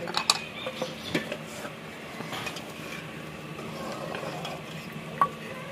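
Metal ladle stirring sweet vermicelli in a metal cooking pot, with a few sharp clinks of the ladle against the pot; the loudest clink comes about five seconds in.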